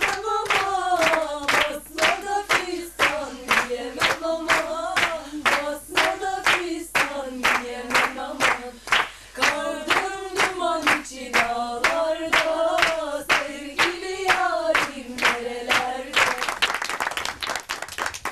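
A group of women singing a henna-night folk song together, to steady rhythmic hand-clapping at about two to three claps a second. About two seconds before the end the singing stops and the clapping turns into applause.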